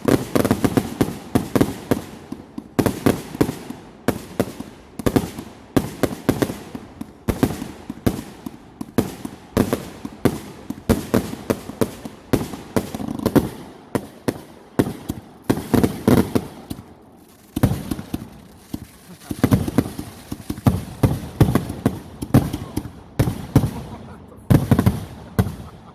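A multi-shot consumer firework cake called Woodstock firing a long, rapid barrage of bangs and crackles, several shots a second, ending abruptly.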